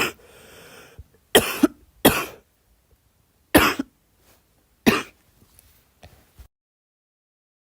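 A girl coughing: about five single coughs, each short and sharp, roughly a second or more apart, with a soft breath after the first. The sound drops to dead silence near the end.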